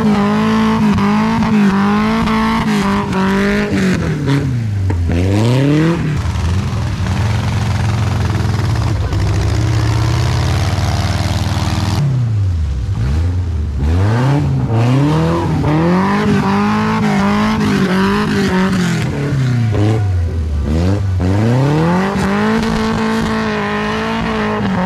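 Off-road buggy engine revving hard and dropping back again and again, its pitch rising and falling many times, as the buggy works through deep mud.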